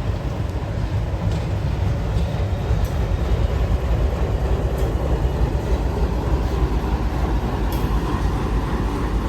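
A train running along the track: a steady low rumble with a few faint clicks.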